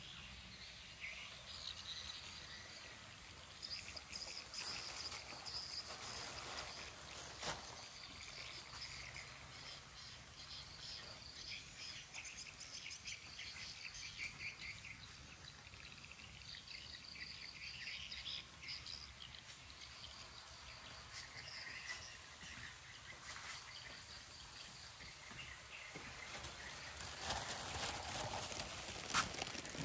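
Outdoor ambience of insects trilling and birds chirping, faint and steady, with a louder rustling noise near the end.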